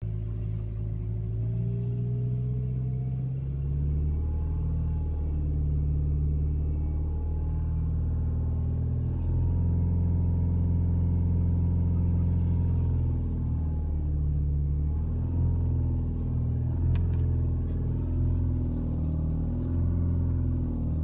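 Audi A4 B8 running with a steady low rumble and a fainter tone above it that slowly rises and falls. This is the strange noise that appeared after the clutch was replaced.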